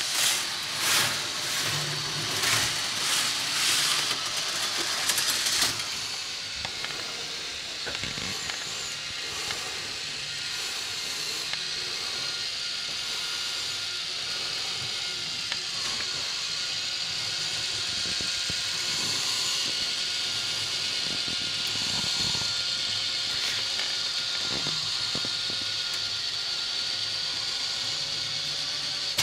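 Small model train running on its track: a rushing sound that swells about once a second for the first six seconds, then a steady high hissing whir.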